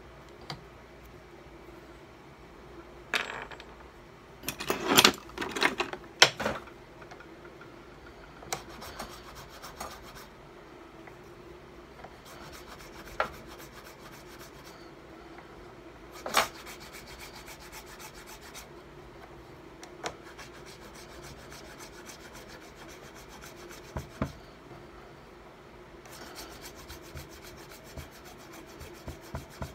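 Small hand tool scraping and filing a green carving-wax ring model held against a wooden bench pin: intermittent rasping strokes, loudest in a cluster a few seconds in, then scattered scrapes and taps, and a quick run of short strokes near the end.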